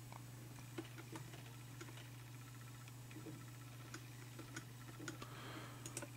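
Faint, scattered clicks of a computer mouse and its scroll wheel, irregularly spaced, over a steady low hum.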